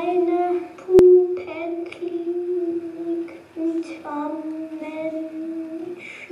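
A high voice singing slow, long-held notes, with a single sharp click about a second in.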